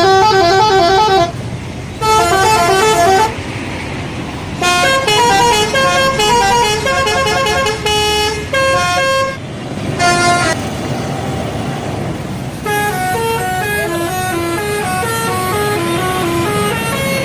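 Bus telolet horn playing quick multi-note melodies in several bursts, the last starting about two-thirds of the way through and playing on. A steady low engine rumble runs underneath.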